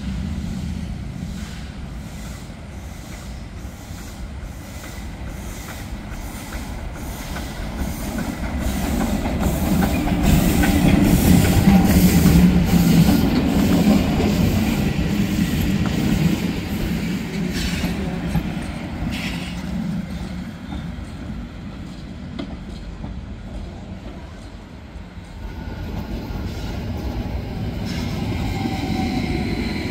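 Steam locomotive Ec 3/5 pulling away, its exhaust beating in an even rhythm that grows louder as it passes about twelve seconds in and stops being heard after about sixteen seconds. The carriages then rumble and clatter over the rails and points as the train draws away, with a thin wheel squeal near the end as it takes the curves.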